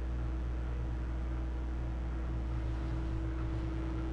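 Electrolux countertop microwave oven running with a steady hum, defrosting frozen cannelloni.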